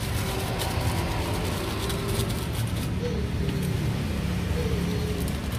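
Steady low rumble of road traffic on the street, with a few faint light clicks.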